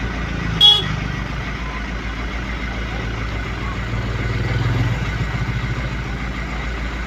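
A motor vehicle engine running, growing louder for a second or so around the middle before easing off. Under a second in, a short sharp high-pitched sound cuts in.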